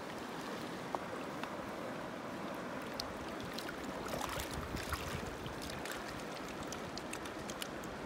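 Shallow, rocky river running, a steady rush of water with small splashes and clicks scattered through it.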